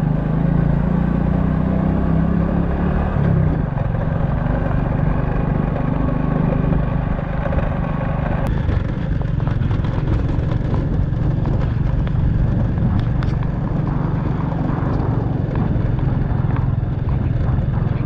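A motorcycle riding along at a steady pace: the engine runs with a steady low hum under the noise of the ride.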